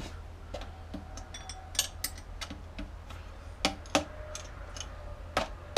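Irregular sharp metallic clinks and taps of tools and bolts against metal engine parts while the turbo is being unbolted. Several clinks ring briefly, and the loudest come in small clusters about two and four seconds in and near the end.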